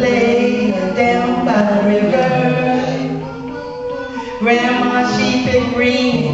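Women's a cappella ensemble of four voices singing a blues in close harmony, holding sustained chords with no instruments. The singing softens in the middle, then comes back fuller a little past halfway.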